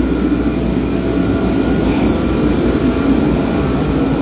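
Steady low machine drone with faint humming tones over it, unchanging in level.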